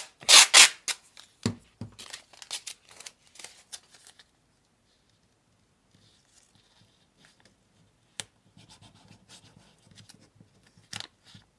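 Masking tape ripped and torn in a few quick loud strokes in the first second, then fainter crinkling and rubbing as the tape is smoothed down over a wooden block, with a couple of sharp ticks near the end.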